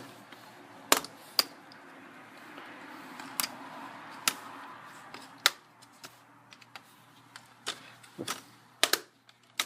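Plastic laptop screen bezel being pried off with a spudger: sharp clicks and snaps at irregular intervals as the snap-fit clips pop loose.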